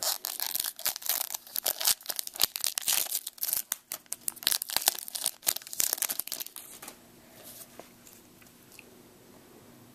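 Shiny wrapper of a Topps baseball card pack being torn open and crinkled in the hands: a dense crackling that stops about seven seconds in.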